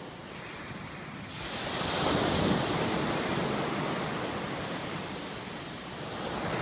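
Sea waves breaking on the shore: a wave comes in a little over a second in, swells to its loudest, then washes back slowly, with the next one building near the end.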